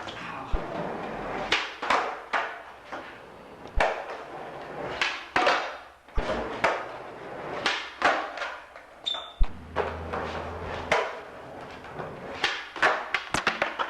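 Skateboards knocking and slapping on a garage floor as flip tricks are tried: a string of irregular sharp clacks and a few heavier thuds.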